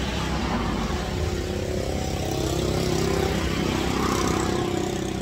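A motor vehicle engine running, with a steady hum that swells toward the middle and eases near the end.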